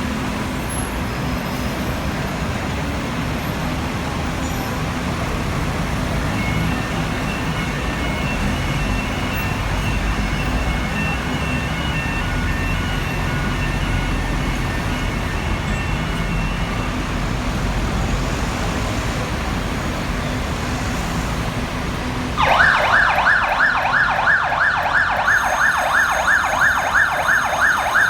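Diesel fire engines running with a steady low rumble, then about 22 seconds in a fire engine's electronic siren switches on suddenly, loud, with a fast repeating rise and fall.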